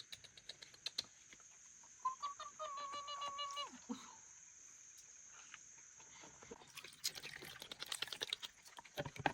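A rooster crows once, a single call of under two seconds beginning about two seconds in, among scattered faint clicks.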